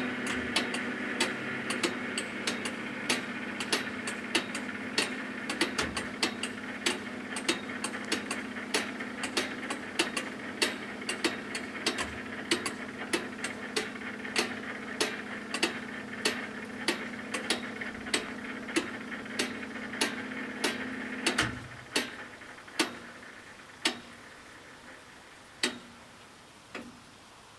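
Italian FS 88 level-crossing bells striking at a steady pace of about two strikes a second over a steady hum as the barriers lift. About three-quarters of the way through, the hum stops and the strikes slow and thin out to a few last ones as the bells wind down.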